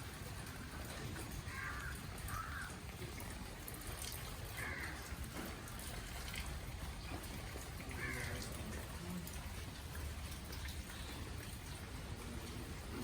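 A bird gives four short calls, about one and a half seconds, two and a half seconds, five seconds and eight seconds in, over a steady, even outdoor noise.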